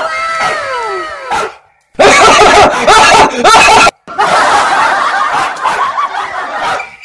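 Loud laughter, snickering and cackling, starting about two seconds in with a brief break near four seconds. Before it comes a falling tone lasting about a second and a half.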